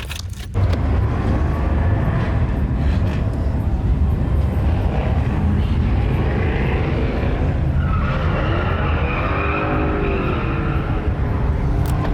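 Vehicle engines running with a heavy, steady low rumble that cuts in suddenly about half a second in. Around 8 to 10 seconds a higher squeal and a short rising-and-falling tone join it.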